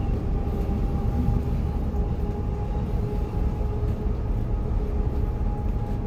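Steady low drone of a Volvo B11R coach's inline-six diesel and road noise, heard inside the cabin while the bus cruises, with a faint steady whine above it.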